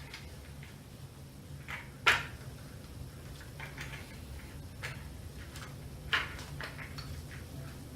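Scattered clicks and light knocks from the e-bike's wiring connectors and parts being handled, the loudest about two seconds in and another about six seconds in. A low steady hum runs underneath.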